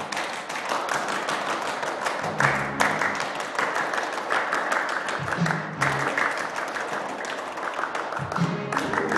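A group of children clapping their hands over recorded backing music, during an instrumental stretch with no singing.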